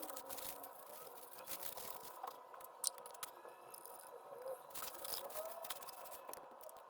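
Faint handling noises: scattered light clicks and scraping, with one sharper click a little under three seconds in.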